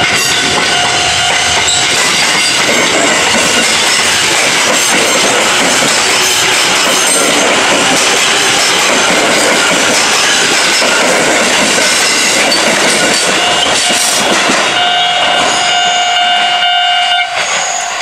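Electric train passing a level crossing at close range, its wheels clattering over the rails in a loud, steady rush. The crossing's warning bell rings steadily, drowned by the train for most of the time and heard clearly again near the end as the train clears.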